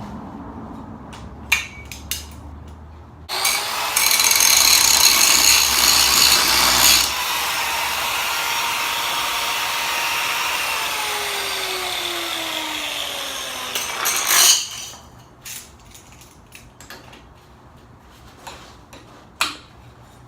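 Power grinder grinding down bolts that were welded in place on a winch mount. It runs loudest for about four seconds, carries on a little lighter for several more, and its pitch falls as it winds down. Metal knocks and clanks come before and after it.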